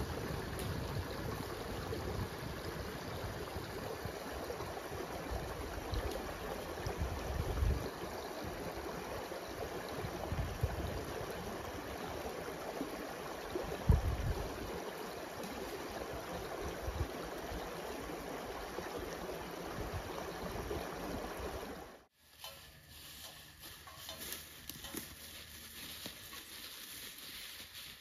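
Steady rush of running water, with low gusts of wind buffeting the microphone. About 22 seconds in it cuts off abruptly to a quieter scene with light scattered clicks and patter.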